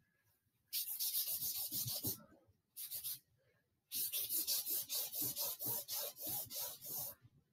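Gloved hand scrubbing thinned oil paint onto a canvas with quick back-and-forth rubbing strokes. There is a run of strokes, a brief pause, a couple more, then a longer run at about four or five strokes a second.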